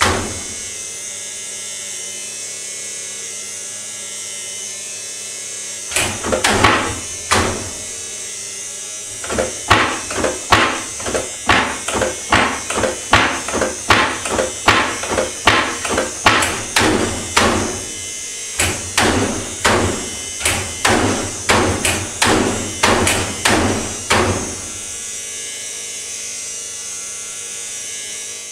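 A sink vanity's cabinet door banging against its frame over and over: a few bangs, then a long run of rapid bangs, somewhat under two a second, over a steady hiss.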